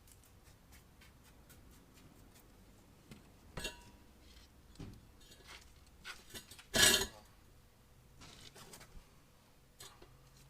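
Scattered metallic clinks and knocks from a small wheel rim and hand tools being handled while a go-kart tire is mounted by hand, the loudest a single sharp clank about seven seconds in.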